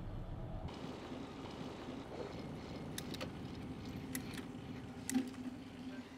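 Cargo bike rolling over paving, tyres hissing, with a low steady hum and a handful of sharp clicks, the loudest about five seconds in.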